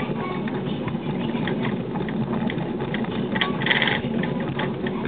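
Koyasan cable car (funicular) running along its track, heard from inside the car: a steady rumble with continuous rattling and clicking from the wheels and the hauling cable over the track pulleys. There is one brief sharper sound a little past halfway.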